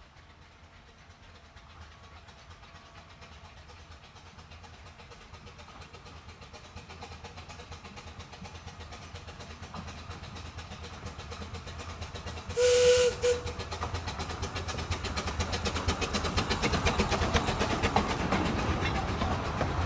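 Narrow-gauge steam locomotive approaching, its running growing steadily louder with rapid rhythmic beats. It gives one short, sharp blast on its steam whistle about two-thirds of the way through.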